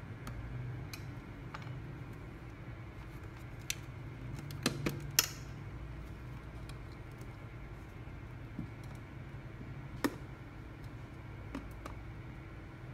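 Scattered sharp clicks and taps of a metal pry tool and plastic parts as a cylindrical speaker's round top cover is pried at around its rim. Three clicks come close together about five seconds in, the last the loudest, and another comes about ten seconds in, over a steady low hum.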